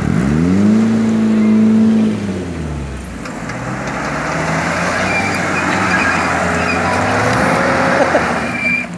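A lifted 4x4 SUV's engine revs up steeply at the start, holds high for about two seconds, then drops back to a lower steady pull. Tyres churn and mud splashes through a water hole, making a steady hiss under the engine.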